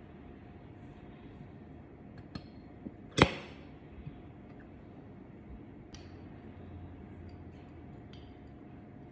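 Kitchen items clinking during preparation: one sharp clink with a short ring a little past three seconds in, and a few lighter taps and clicks around it.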